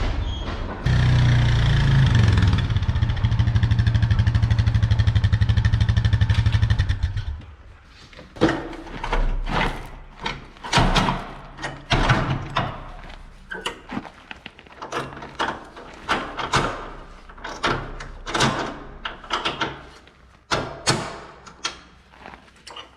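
A vehicle engine running steadily, shut off suddenly about seven seconds in. It is followed by a series of irregular metallic clanks and knocks, like metal parts being handled.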